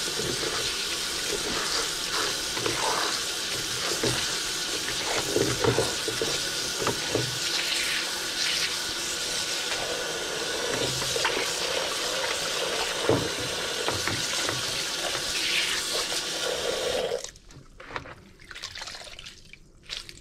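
Kitchen faucet running steadily into a plastic colander as pickled cabbage strips are rinsed and rubbed by hand. The tap shuts off suddenly near the end, leaving dripping and the quieter sound of the wet cabbage being squeezed out by hand.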